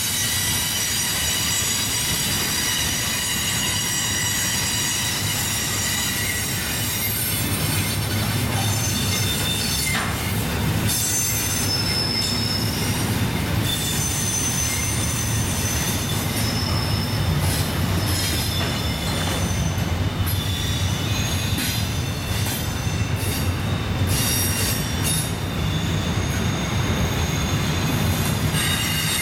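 Double-stack intermodal train's well cars rolling past close by: a steady low rumble of wheels on rail with high-pitched wheel flange squeal from the tight curve. The squeal holds steady for the first ten seconds or so, then comes and goes in shorter squeals.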